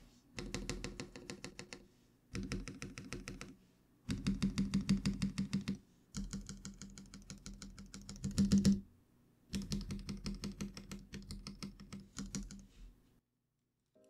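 Rapid runs of keystrokes on stabilized long keys of a custom mechanical keyboard, with TX stabilizers lubed with Krytox 205g0 and wires greased with dielectric grease, under Strawberry Milk Lite linear switches. They come in five bursts of about eight presses a second, with short pauses between: the stabilizers being tested for rattle.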